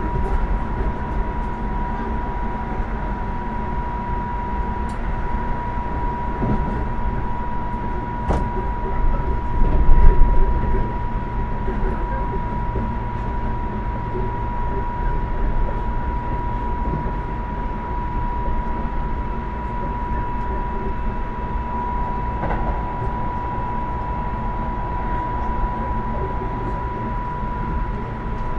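Running noise heard inside the passenger saloon of a Keisei AE100 electric train: a steady rumble of wheels on rail with a constant high tone and occasional clicks. About nine seconds in, it swells into a louder low rumble for a couple of seconds, then settles back.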